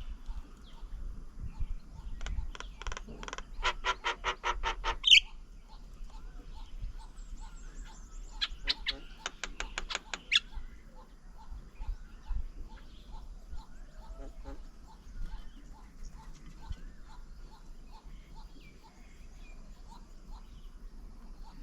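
Birds calling: two bursts of rapid chattering, about ten notes a second, the first ending in a louder call, then a faint series of short repeated notes about twice a second.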